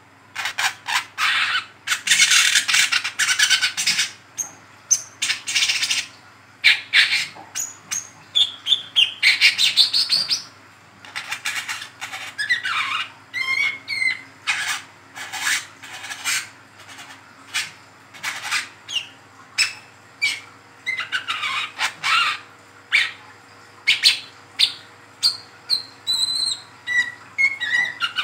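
Young brown-throated sunbird (kolibri kelapa, 'wiceh trotol') twittering without pause: a fast run of sharp high chirps and short trilled notes.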